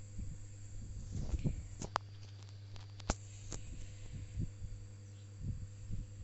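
A few sharp clicks, about two and three seconds in, from operating the device while editing, over a steady low electrical hum.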